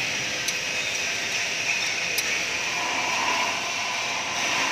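Two light metallic clinks of a hand wrench against a forklift engine's cylinder head and valve gear, over a steady background noise.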